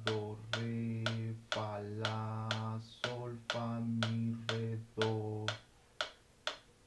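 A man sight-singing solfège note names in a low voice, in time with a metronome clicking at 120 beats a minute (two clicks a second). The singing stops about five and a half seconds in, leaving only the metronome clicks.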